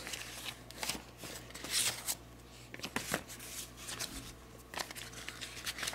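Paper instruction leaflets rustling and crinkling as they are handled and shuffled, in irregular bursts.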